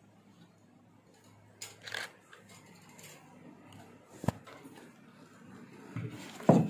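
Quiet small-room tone broken by scattered rustling of handling and movement, a single sharp click about four seconds in, and a louder bump near the end.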